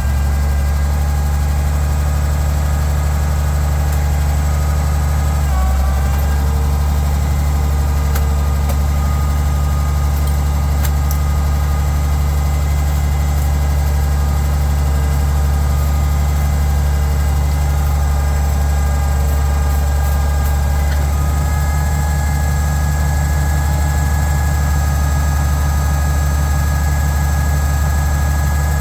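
Oliver 1650 tractor engine running steadily at idle, with a brief dip in its note about five and a half seconds in.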